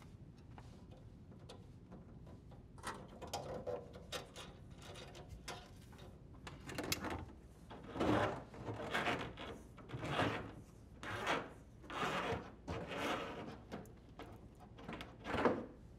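Corrugated plastic dishwasher drain hose scraping and rustling as it is pulled through the hole in the cabinet wall in repeated tugs, about one a second, starting about three seconds in.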